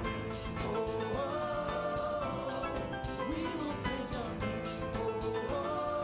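Live gospel praise-and-worship band: singers hold long 'oh' notes that slide up into the next pitch, over keyboard, bass guitar and a drum kit keeping a steady beat.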